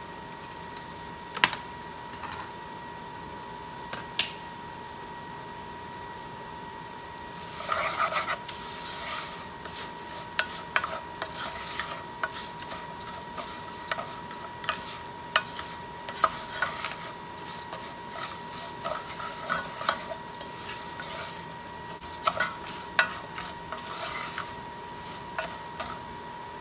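A spoon stirring and scraping rice in a pan as it toasts in melted butter with spices, over a light sizzle. At first there are only a few separate clicks; from about a third of the way in the stirring strokes come thick and irregular.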